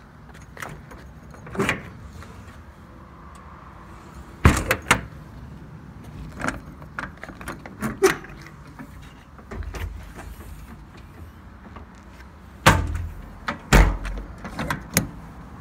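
Compartment doors on an IMT Dominator service truck body being worked: paddle latches clicking and metal doors knocking and thudding shut, a string of separate clacks, the heaviest about four and a half seconds in and twice near the end.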